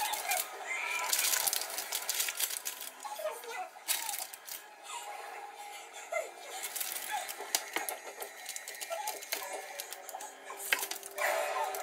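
Parchment paper crinkling and rustling as a chocolate sponge cake is handled and a knife saws through it, making a dense run of small crackles and clicks with louder rustling bursts now and then.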